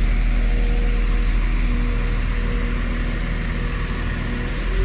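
Northern class 195 diesel multiple unit pulling away from the platform, a steady rumble and hum of engine and wheels close by. Near the end a rising tone sets in as the train accelerates.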